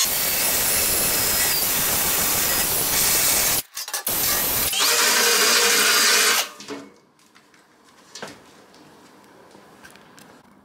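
Cordless drill spinning a carbide burr, grinding into the edge of an aluminium footplate to notch it for a floor rib. Two long runs of loud grinding, about three and a half and two seconds, each starting with a rising whine as the drill speeds up, with a short stop and a brief blip between; after that only a few light handling knocks.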